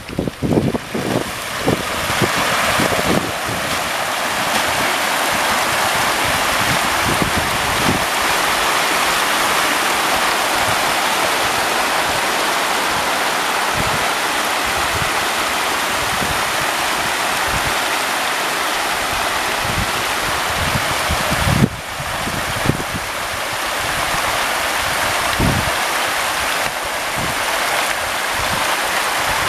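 Hundreds of hybrid magur catfish thrashing and splashing at the water surface as they feed, a steady loud churning hiss of water, with occasional low thumps.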